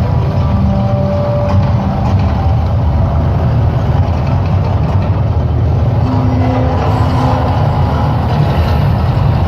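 Mirage volcano show's eruption effect: a loud, steady, deep rumble with a few held musical tones over it in the first two seconds.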